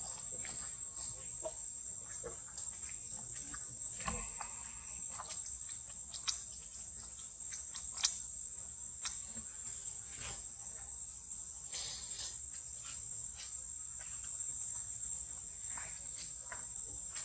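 Steady high-pitched insect chorus, with scattered short clicks and taps over it; the sharpest tap comes about eight seconds in.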